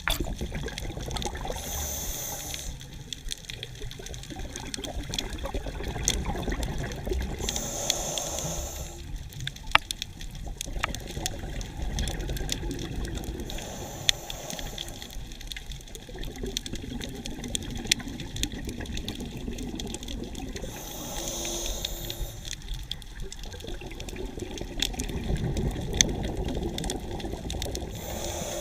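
Scuba diver breathing through a regulator underwater: short hissing inhalations every several seconds, each followed by a longer rumbling rush of exhaled bubbles, over a steady underwater wash with scattered small clicks.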